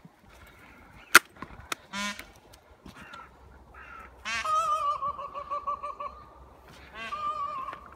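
A Finnish Spitz bays at a peacock: one short sharp bark about two seconds in, then a long wavering cry of about two seconds and a shorter one near the end. A sharp click comes about a second in.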